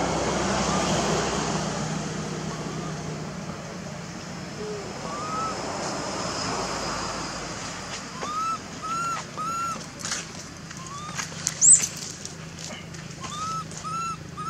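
Baby macaque crying in short, arched coo calls that rise and fall, repeated in little clusters of two or three. About two-thirds of the way through there is one brief, sharp, high squeal, the loudest sound, over a steady background hiss.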